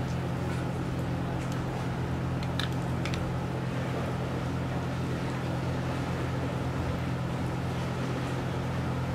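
Steady low mechanical hum made of several fixed low tones, with a few faint clicks about two and a half to three seconds in.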